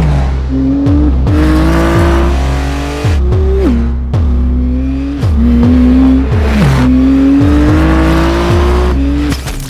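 Maserati GT2 race car's twin-turbo V6 engine at full throttle, revving up and dropping in pitch several times as it shifts through the gears, over music with a steady deep bass.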